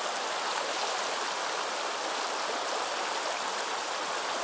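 River water rushing over a shallow, rocky riffle: a steady, even rush of moving water.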